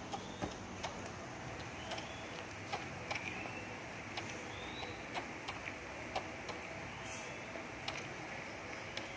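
Baby macaque suckling from a plastic feeding bottle, making soft irregular clicks roughly once a second, with a few faint short high chirps in between.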